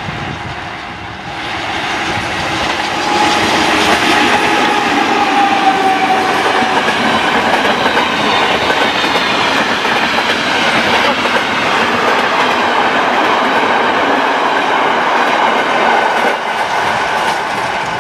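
Locomotive-hauled passenger train passing close by at speed: a steady loud rush of wheels on rails, with a whine falling in pitch a few seconds in as the locomotive goes by. The sound drops a little near the end as the last coach passes.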